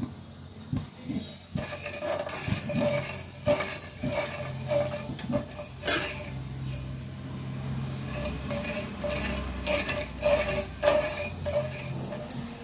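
Metal spoon stirring sugar and water in a saucepan for sugar syrup, scraping and clinking against the pan in repeated strokes.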